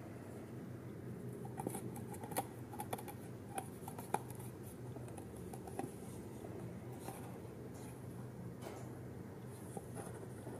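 Stiff printed card panels of a fold-up paper toy room being handled and slotted together, tabs pushed into die-cut slots: a cluster of small clicks and paper rustles in the first half, a few more scattered later, over a faint steady low hum.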